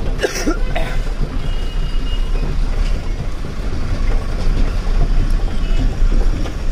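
Inside the cab of a BharatBenz 4023 truck: steady diesel engine and road rumble as it rolls slowly through a turn, with a short hiss just after the start.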